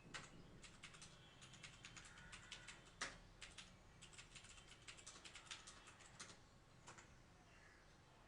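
TVS Gold mechanical keyboard with clicky Cherry MX Blue switches being typed on quickly: quiet, rapid runs of keystroke clicks, with one louder stroke about three seconds in and fewer strokes near the end.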